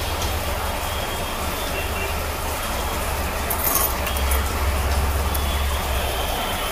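Steady low mechanical hum with an even hiss over it, with a few faint metallic clinks of small silver parts about three and a half seconds in.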